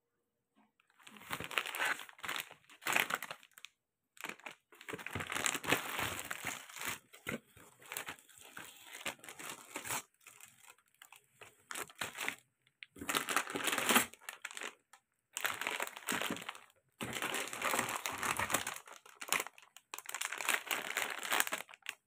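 Plastic snack packaging crinkling and rustling as the wrapped packs are handled, in irregular bursts with short pauses between them.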